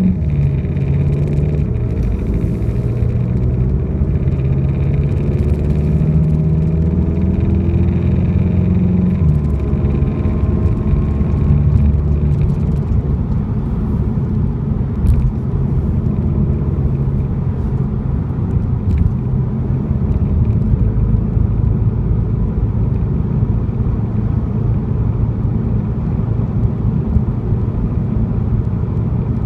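2015 VW GTI Mk7 on the move, its turbocharged 2.0-litre four-cylinder rising in pitch as it accelerates, with a drop near nine seconds in, then settling to a steady low rumble at cruise.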